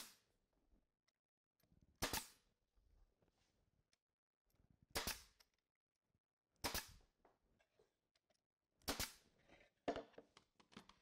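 Nail gun firing nails into plywood: six sharp shots, a second or more apart, the last two close together.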